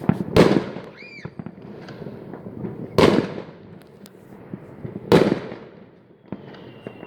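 Fireworks going off: three loud bangs with echoing tails, about half a second, three seconds and five seconds in, with smaller pops and crackles between. A brief whistling tone comes about a second in.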